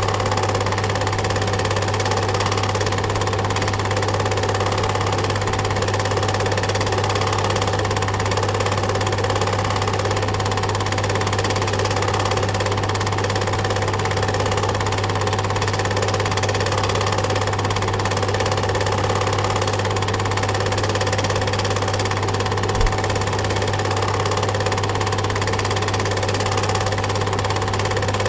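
Home-movie film projector running: a steady mechanical whir over a strong low hum, unchanging throughout, with one brief low thump about three-quarters of the way through.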